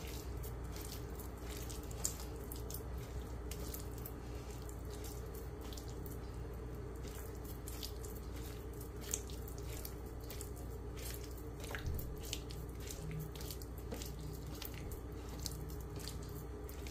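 A hand squishing and mixing a wet, buttery mix of softened butter, sugar, egg and milk into a well of flour, with many small wet clicks and squelches over a steady low hum.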